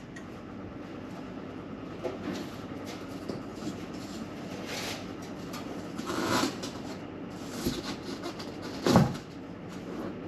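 Knocks, clatter and rattles of building work on a partition over a steady background noise, with a single louder thump about nine seconds in.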